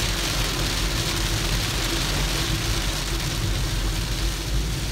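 Car cabin noise while driving in rain: a steady low rumble of engine and tyres on a wet road, with an even hiss of rain over it.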